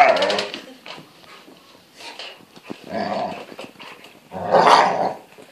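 Alaskan malamute growling in play, in three rough bouts, the last and loudest near the end.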